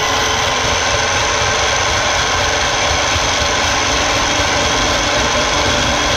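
Electric food processor running at full speed with a steady motor whine, its blade grinding dry-toasted rice noodles into a coarse powder.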